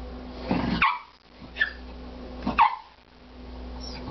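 A dog barking in short sharp barks, about one a second, alerting at something it senses inside a wall.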